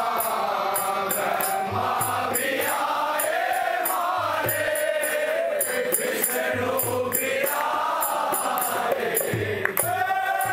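Devotional bhajan: a man sings into a microphone over his own harmonium, with a steady high ticking beat and low thumps keeping time. Near the end the voice and harmonium settle onto one long held note.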